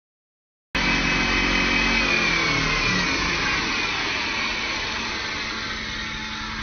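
CNC wood lathe turning a wooden spindle: motor whine and cutting noise that start abruptly, with a high whine dropping in pitch between about two and four seconds in, then a steady hum.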